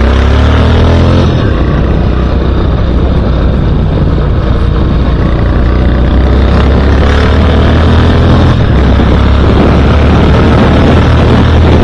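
Royal Enfield Classic 500's single-cylinder engine running steadily under way on the road, a loud, even low note.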